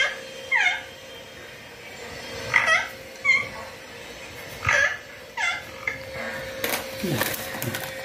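Young ringneck parakeet giving a series of short, sharp squawks, about six spread over several seconds. A noisy rustle near the end is over a faint steady hum.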